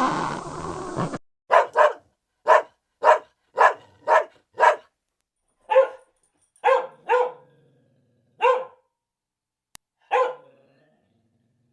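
An animal barking: about a dozen short, sharp barks in uneven runs, starting about a second and a half in, with the last one near the end.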